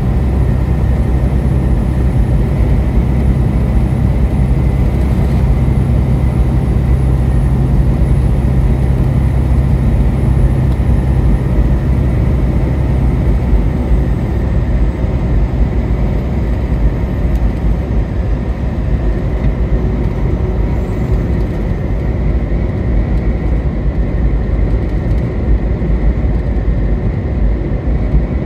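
Car driving at highway speed: a steady rumble of road and engine noise. The deepest part of the rumble eases a little about halfway through.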